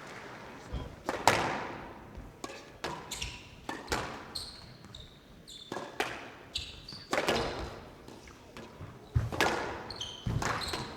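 A squash rally: the ball struck by rackets and smacking off the court walls in sharp, echoing hits, about one to two a second, with short squeaks of players' court shoes between them.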